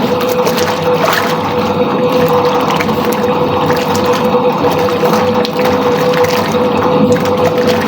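Soviet washing machine running a wash, its motor giving a steady hum over water sloshing in the tub.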